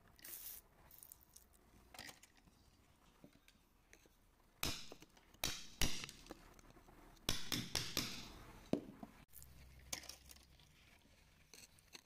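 Scattered clicks, taps and short scrapes, with a few brief splashes, as wet rock around an embedded green stone is worked with a flat metal tool.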